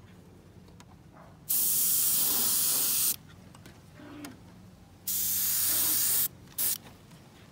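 Airbrush spraying paint in two bursts of hiss, each a second or so long, then a brief third puff near the end.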